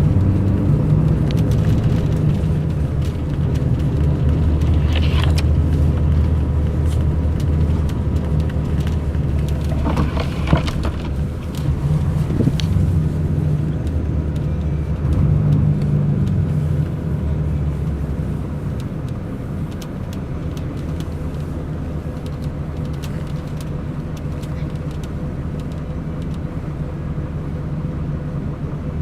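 Diesel engine of a Mercedes-Benz O500 RSD BlueTec5 coach running as the bus drives, a deep hum that shifts in pitch with engine speed and eases off in the second half. Brief higher-pitched noises come about five and ten seconds in.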